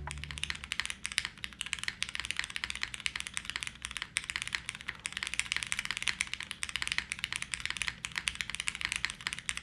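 Fast, continuous typing on a Class60 custom mechanical keyboard, built plateless with a leaf-spring mount, Cherry MX Black linear switches and GMK keycaps: a dense, unbroken run of soft key clacks.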